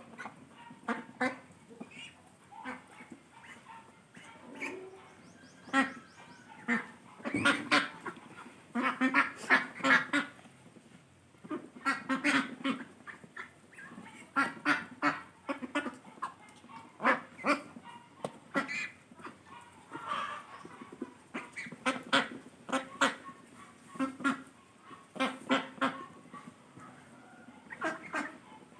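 An animal calling over and over in short pitched calls, in runs of several with pauses between.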